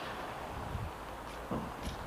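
Aprilia RS4 125's single-cylinder four-stroke engine running at low revs as the bike rolls at walking pace, with a couple of short knocks in the second half.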